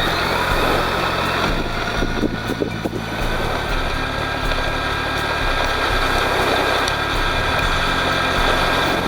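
Radio-controlled Tamiya Hilux High-Lift truck driving: a steady high motor whine that rises at the start and then holds, over a low hum that shifts every second or two.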